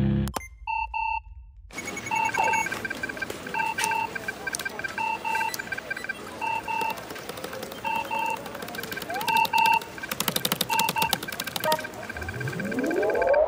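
Electronic double beeps from computer consoles, a pair of short tones repeating about every second and a half, over faint clicking. A low rumble cuts off just after the start. A run of rapid keyboard clicks comes about ten seconds in, and a tone sweeps upward near the end.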